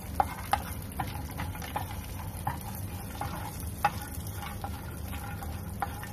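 Black plastic spatula stirring and tapping against a nonstick frying pan as cashew pieces roast in ghee. Irregular light taps come about once or twice a second over a steady low hum.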